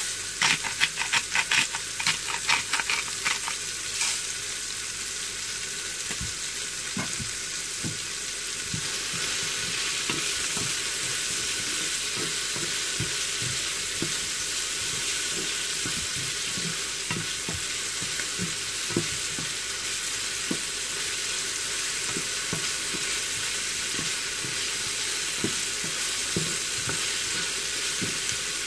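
Chopped tomatoes and garlic frying in a pan with a steady sizzle. For the first few seconds a salt grinder crunches Himalayan salt over the pan in a quick run of clicks. Later come a few scattered taps of stirring.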